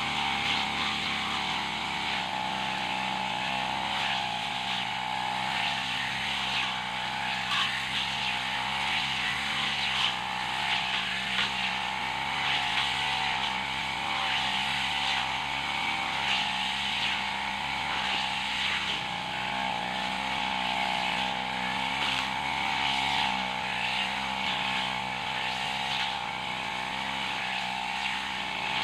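Backpack brush cutter's engine running at a steady speed while its blade cuts through grass and weeds, with faint scattered ticks from the cutting.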